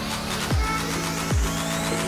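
Background electronic music with held tones and deep falling bass hits, twice.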